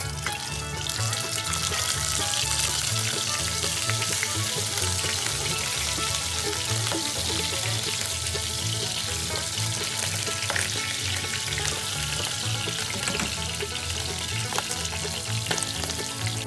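Salmon pieces sizzling steadily as they fry in hot oil in a pot, with a few light clicks of the spoon and spatula against the pan as the pieces are turned.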